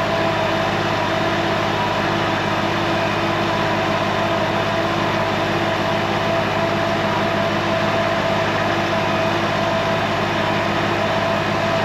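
Semi truck's diesel engine idling steadily while the hopper-bottom trailer empties its load from the open bottom gates onto a pile. The noise is even throughout, with a steady hum.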